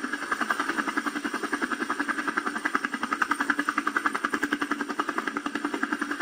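Small camera drone's propellers whining steadily as it climbs, with a fast, even flutter.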